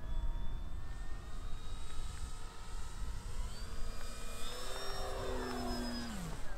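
Electric motor and propeller of a 1200 mm GeeBee RC model plane whining as it flies past. The whine grows louder and then drops in pitch about six seconds in as the plane goes by, with wind rumbling on the microphone.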